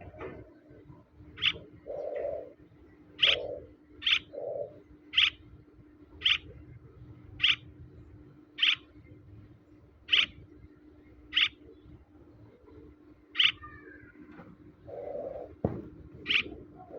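Young albino swallow giving short, sharp high chirps, about a dozen of them roughly a second apart. Lower muffled sounds come now and then between them.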